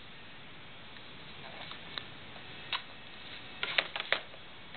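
Sharp clicks and taps of small hands and food on a plastic high-chair tray and plastic cup: a couple of single taps, then a quick cluster of several near the end.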